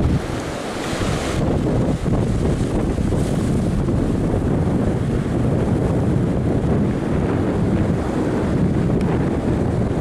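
Wind buffeting the microphone over the steady wash of breaking ocean surf, with a heavy low rumble; the higher hiss eases about a second and a half in.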